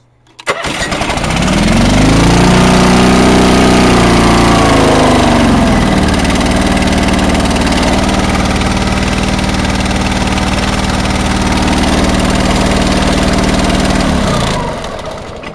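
Honda HT3813 garden tractor's two-cylinder engine starting from cold about half a second in, running fast for a few seconds, then settling to a lower steady speed, and shutting off shortly before the end. The exhaust is loud through a holed muffler.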